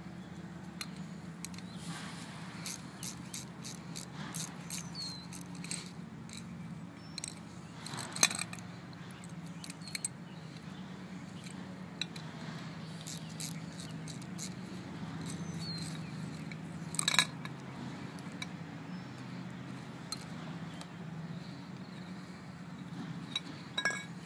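A wrench clicking and scraping on the bolts of a geoprobe monitoring-well box's metal lid as the lid is unbolted and lifted off, with two louder metal clanks about 8 and 17 seconds in, over a steady low hum.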